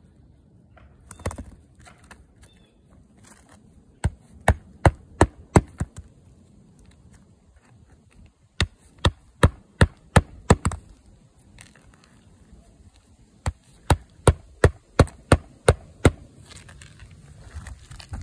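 Claw hammer striking on an asphalt shingle roof: three runs of six or seven quick, sharp blows, about two to three a second, with pauses between the runs.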